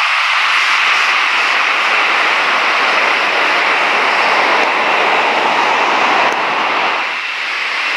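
Jet engine noise from a four-engined Emirates Airbus A380 rolling out on the runway after touchdown, a steady loud rush that eases off slightly near the end.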